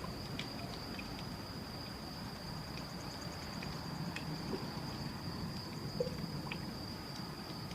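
Crickets trilling steadily in a single high tone over a steady low rumble, with a few faint clicks scattered through.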